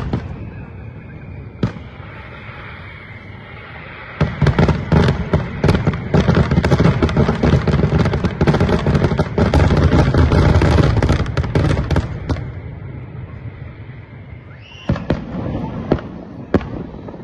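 Aerial fireworks display: a few scattered bangs, then from about four seconds in a dense run of rapid bangs and crackle lasting about eight seconds. It fades, then a few more bangs come near the end.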